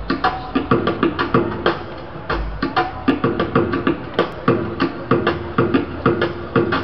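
Live amplified music through a stage PA: an irregular run of sharp, clicky percussive hits, three or four a second, with some pitched notes under them.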